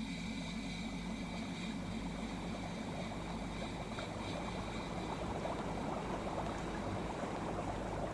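Steady water-like rushing and bubbling of liquid heating in a glass flask.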